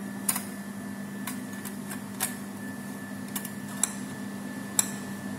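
Scattered sharp clicks and knocks, about half a dozen, as a butane gas canister is seated and locked into a portable gas stove's canister compartment, over a faint steady hum.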